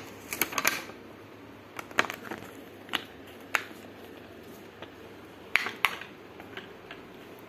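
Plastic Ben 10 toy watch and its clear plastic packaging being handled: scattered sharp clicks and short crinkles, about ten in all, with pauses between.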